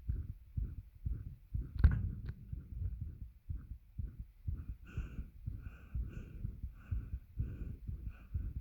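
Human heartbeat, a steady run of low thumps about twice a second, heard with pressure on the chest. A single sharp knock about two seconds in is the loudest sound.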